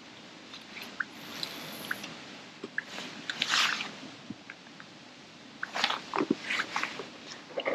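Close rustling and crunching handling noise as a fishing rod and reel are lowered and handled after a cast, with faint short high chirps about once a second.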